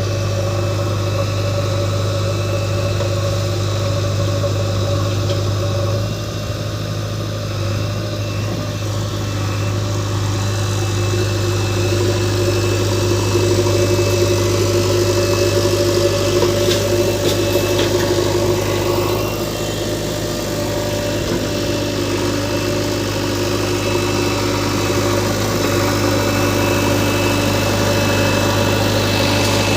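Heavy diesel engine running steadily, with a slight rise in level partway through.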